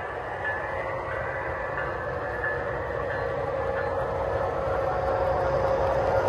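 Three-rail model freight cars rolling past on the track, a steady rumble of small wheels on rail that grows a little louder, with a steady hum coming in near the end.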